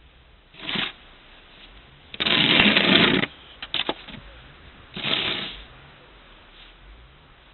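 Snow being scraped and cleared in irregular strokes. The longest and loudest stroke comes about two seconds in, followed by a couple of sharp knocks.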